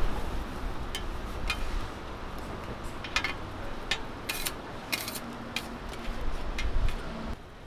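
Metal spatulas clinking and scraping against a flat steel griddle as pancakes are lifted and turned, a string of irregular sharp clinks over a low steady rumble.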